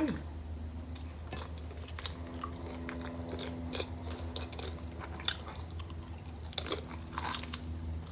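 Close-miked chewing of a mouthful of taco, with wet mouth sounds and scattered crunches of the shell. A faint steady hum runs underneath.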